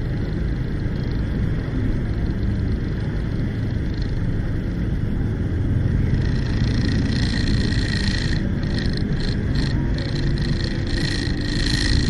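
Steady low rumble of a vehicle's engine and road noise, heard from inside a vehicle moving slowly in traffic. From about halfway, a higher hiss with a faint steady whine joins in.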